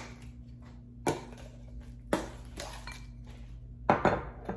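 Food storage bowls and their lids being handled, knocking and clinking against each other in four short sharp knocks, two of them close together near the end, over a faint steady low hum.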